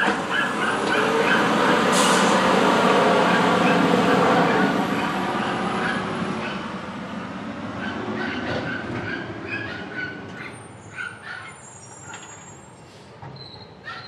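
Automated side-loader garbage truck pulling away from the curb: its diesel engine runs loud and rising for the first few seconds, then fades steadily as the truck drives off.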